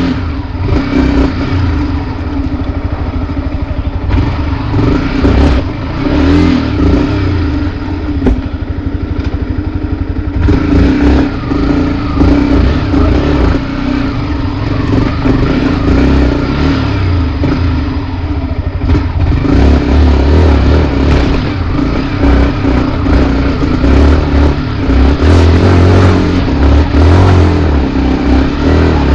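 Yamaha WR155R trail bike's single-cylinder engine running off-road, the throttle opening and closing so the engine note rises and falls.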